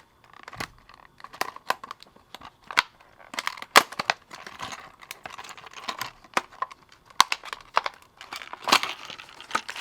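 Fishing lure packaging being torn open and crinkled by hand, a busy run of crackles and sharp clicks as a crankbait is worked out of it.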